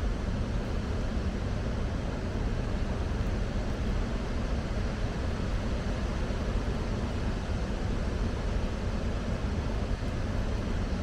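Water rushing down an open dam spillway gate as the dam releases floodwater, a steady, deep, even rush of noise that never changes.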